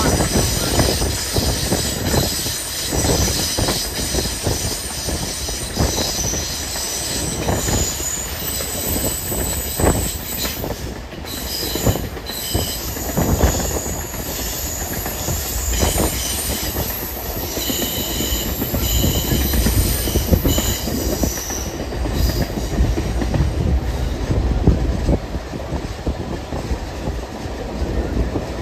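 Passenger train running over jointed rail, its wheels clacking over the rail joints. A high-pitched squeal of several tones rides over the clacking and stops about 22 seconds in.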